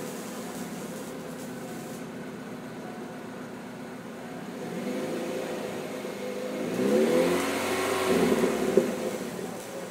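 Supercharged 2.0 L LSJ four-cylinder of a Chevrolet Cobalt SS idling steadily through a Pacesetter long-tube header and stock exhaust. It is then revved twice in quick blips in the second half, the pitch rising and falling each time.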